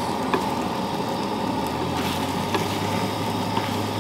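Fried rice sizzling in a frying pan on a camp stove, with a few light taps of a wooden spatula against the pan, over a steady low hum.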